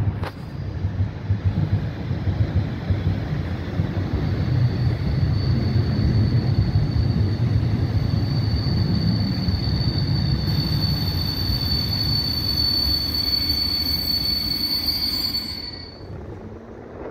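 Passenger train hauled by an EP07 electric locomotive rumbling slowly into the station, with a steady high-pitched squeal from its braking wheels. The squeal grows stronger, then cuts off about a second and a half before the end, leaving a quieter rumble.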